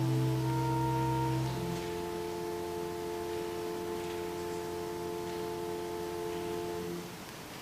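Organ music ending on a long held chord: a chord change, then the final chord sustained evenly for about five seconds before it stops about seven seconds in.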